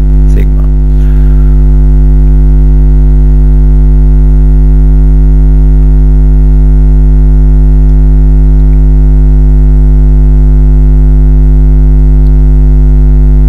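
Loud, steady electrical mains hum: a 50 Hz buzz with a stack of overtones that does not change.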